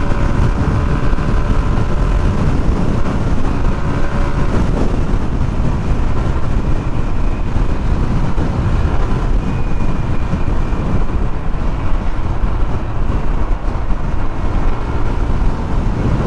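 Steady wind rush and road noise from riding a Yamaha NMAX 155 scooter at speed, with no windscreen to break the wind.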